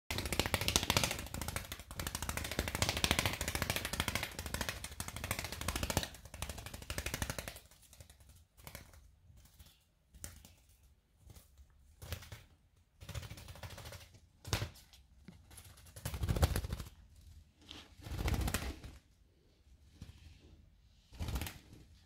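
A budgerigar's wings beating rapidly against a tile floor as it flaps and tumbles about without taking off: a fast, continuous flutter for the first seven seconds or so, then short bursts of flapping every second or two.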